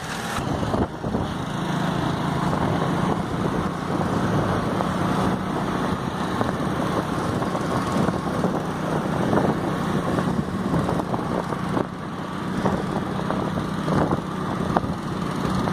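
A motorbike's engine runs steadily at cruising speed on an open road, with a constant low hum under a rush of wind and road noise.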